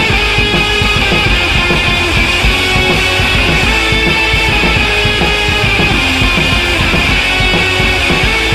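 Rock music with electric guitar and drums, loud and steady throughout.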